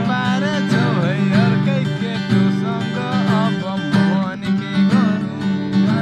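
Acoustic guitar strummed in steady chords, with voices singing along over it.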